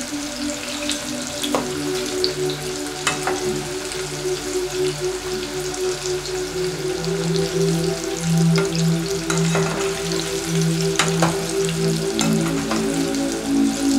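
Hot oil sizzling around battered broccoli florets deep-frying in a pot, stirred with a metal skimmer, with a few sharp clicks. Soft background music with low held notes plays underneath.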